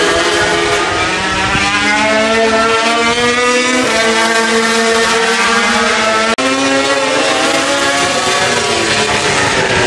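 MotoGP prototype racing motorcycle engines at speed on track, loud and continuous, the pitch climbing through the gears and dropping on downshifts several times over.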